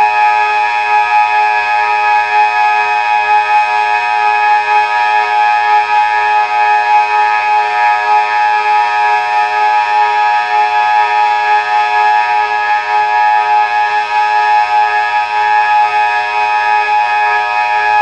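Delta 6 electronic civil-protection siren sounding a loud continuous tone at one unchanging pitch, with no rise or fall. This is the Austrian steady-tone (Dauerton) signal.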